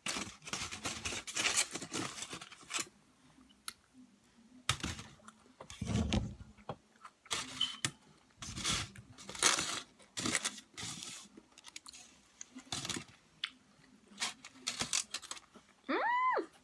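Close-up eating sounds: irregular bursts of crunching, chewing and the rustle and scrape of the food and its container, with a short high squeak that rises and falls in pitch near the end.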